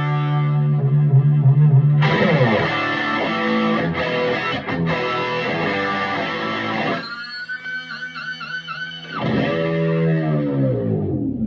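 Electric guitar played through a Vintage Sound Amp tube amplifier. A chord rings out first, then chords and single notes are picked. A few seconds later comes a passage of wavering, vibrato-laden notes, and a last chord sinks in pitch near the end.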